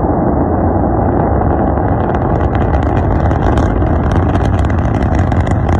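SpaceX Starship SN9's three Raptor engines thundering during liftoff and climb. A steady low rumble runs throughout, and from about two seconds in a dense crackle of sharp pops rides on top of it.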